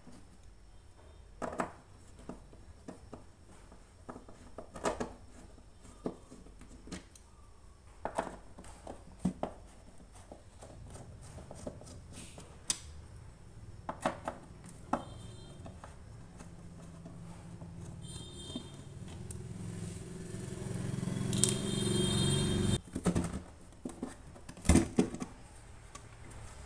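Screwdriver taking out the screws of a speaker cabinet's terminal plate, with scattered small clicks, scrapes and knocks of metal and plastic handling. A low rumble builds in the background from about ten seconds in and cuts off suddenly near the end, followed by the knocks of the plate being worked loose.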